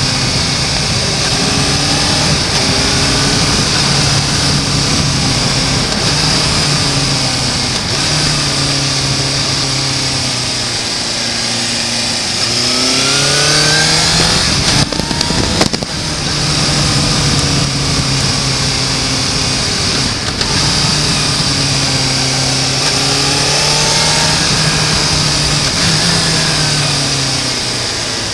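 Suzuki GSR750's inline-four engine running under way, its pitch rising and falling again and again as the rider opens and closes the throttle. About halfway through it climbs steadily in pitch under acceleration, followed by a brief rough rush of noise.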